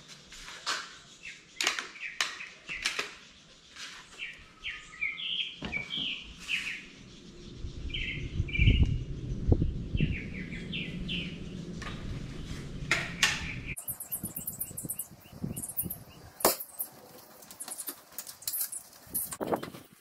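Small birds chirping in short rising-and-falling calls, over scattered clicks and knocks from handling a rifle and shooting stick. A low rumble comes in about halfway through and stops suddenly a few seconds later.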